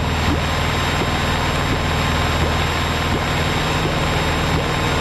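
Piper PA-28's piston engine and propeller droning steadily in flight, heard inside the cabin.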